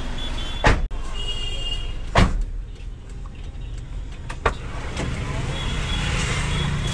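Inside a parked car: three sharp knocks over a low street rumble, with the car door opened about two-thirds of the way through and louder street noise coming in.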